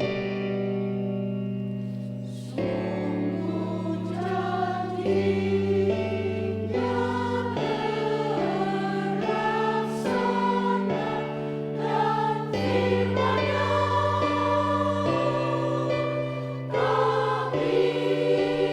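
Church choir singing a sacred piece in parts, over sustained keyboard chords; the voices come in more strongly about two and a half seconds in.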